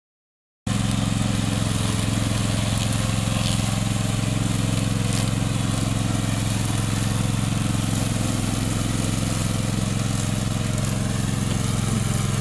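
Engine of a remote-control commercial lawn mower running at steady speed. It comes in suddenly less than a second in, after a moment of silence.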